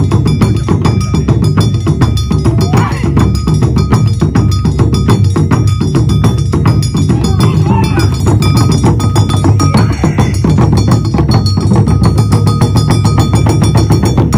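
Awa Odori festival music: taiko drums beaten in a steady fast rhythm, with a ringing metal bell struck over them. The music stops sharply near the end.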